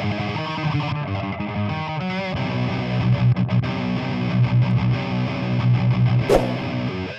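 Heavily distorted electric rhythm guitar from the Brainworx Diezel VH4 amp-sim plugin on its high-gain channel 4, the gain backed off a little, playing a metal riff that settles into low chugging notes about two seconds in.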